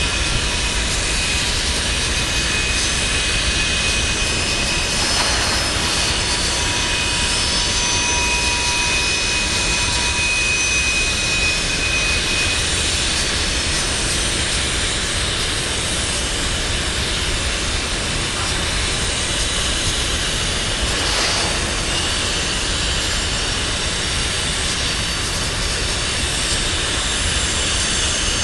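Steady roar of a freight train's tank cars rolling past, steel wheels on rail, with thin high-pitched squeals that come and go.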